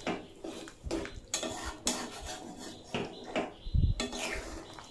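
Metal spatula stirring a thick curry in a metal kadai, scraping and clinking against the pan in a series of short strokes. A dull low thump comes near four seconds in.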